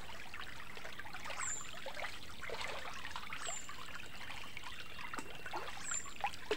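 Shallow forest river trickling and gurgling over stones, with small irregular splashes. A short, high, falling bird note repeats about every two seconds over it.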